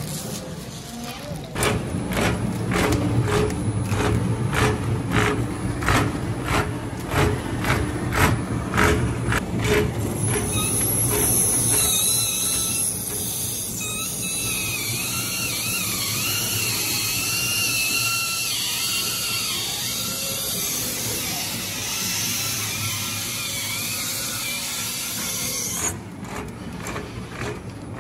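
Pallet stretch-wrapping machine running as its turntable turns the load: a regular clicking about twice a second, giving way about ten seconds in to a high, wavering squeal that stops shortly before the end.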